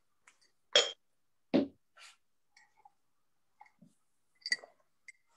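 Someone taking a drink from a cup: two sharp knocks near the start, a few small clicks, and about four and a half seconds in a clink with a brief ring.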